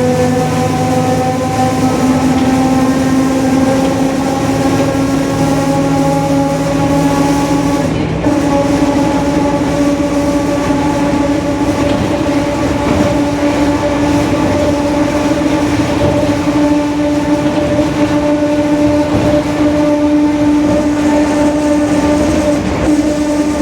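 Differential of a Mercedes-Benz OF-1721 city bus howling very loudly while under way: one steady whining tone that slowly rises in pitch as the bus gathers speed, with a brief dip about eight seconds in.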